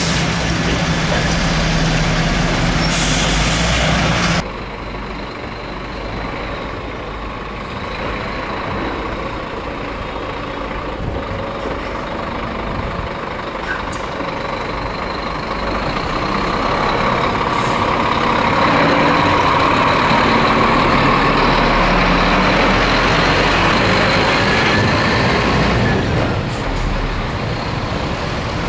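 Scania truck on the road: steady engine and road noise. The level drops suddenly about four seconds in, then builds gradually and stays loud.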